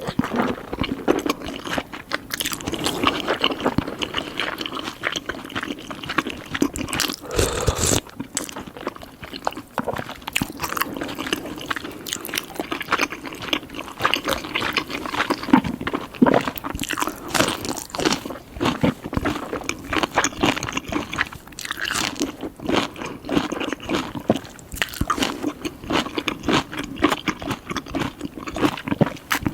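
Close-up eating of tteokbokki, chewy Korean rice cakes in sauce: continuous chewing with many small irregular clicks, and a louder bump about seven seconds in.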